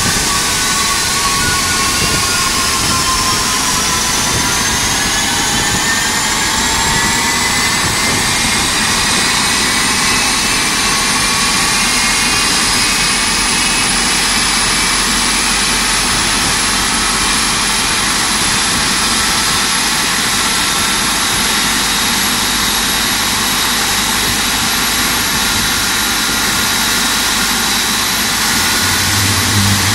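GE90-115B turbofan engine spooling up during a ground run-up after a water wash, which clears water from the engine core. A loud steady rush with a whine that climbs in pitch over the first fifteen seconds or so, then holds steady.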